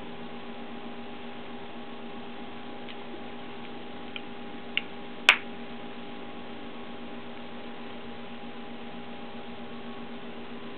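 Steady electrical hum of the room with a few level tones, broken by three short clicks just past four seconds in, the last and loudest a sharp click a little past five seconds, as a metal dental articulator holding plaster and stone models is handled.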